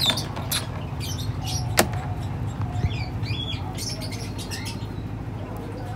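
Small birds chirping on and off in short high calls over a steady low hum, with one sharp click a little under two seconds in.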